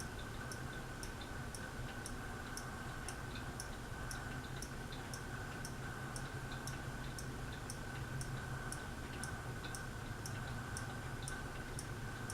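Harbor Breeze Aristocrat ceiling fan running on medium: a steady motor hum with a light, even tick about two or three times a second.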